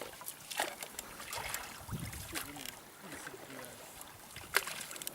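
Small rowboat being rowed: oars dipping and splashing in the water, with several sharp knocks, the loudest near the end.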